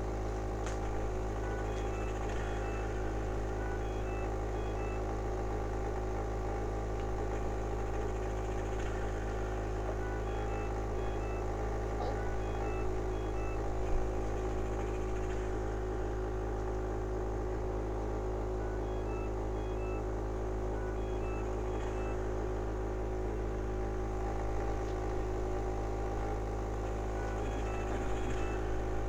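Steady machine hum of a mechanical cough assist (insufflator-exsufflator) blower running, with one short click about halfway through.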